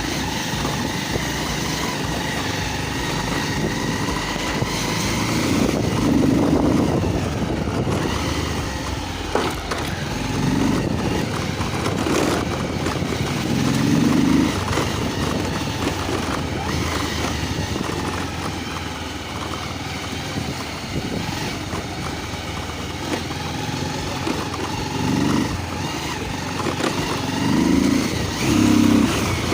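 Motorcycle running as it is ridden along, its engine note holding fairly steady throughout.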